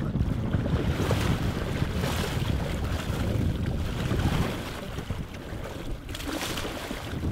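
Wind buffeting the microphone over choppy water, a heavy low rumble with waves splashing against a small boat's hull. The wind eases about four and a half seconds in, then gusts again near the end.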